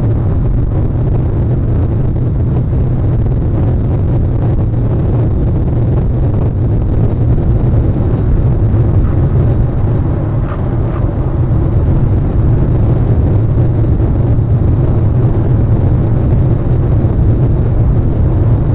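Steady low rumble of wind buffeting an outdoor nest-camera microphone.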